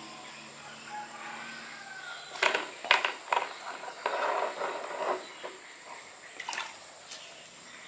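A bucket hauled up out of a well on a rope: a few sharp knocks and clatters as it bumps the well wall, then about a second of water splashing and sloshing as it comes over the rim, and a couple of light clicks near the end.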